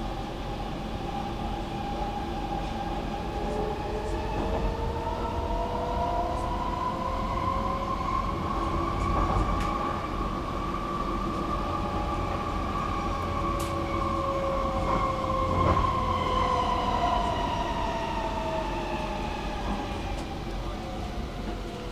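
Stockholm metro train running, a rumble of wheels on rail under a multi-toned whine from its traction motors that climbs slowly in pitch and then falls away again as the train's speed rises and eases. A few faint clicks pass over the rumble.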